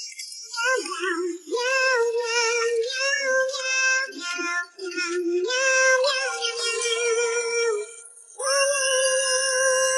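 A high, childlike synthetic singing voice over music, its melody moving in short phrases, with a long held note starting near the end.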